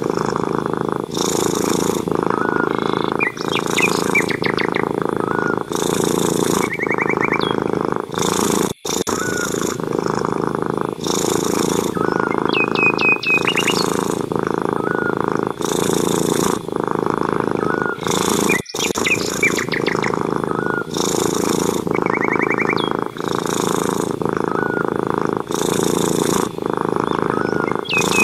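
Domestic cat purring loudly and close, the purr swelling and fading with each breath about once a second. Small birds chirp and trill faintly behind it.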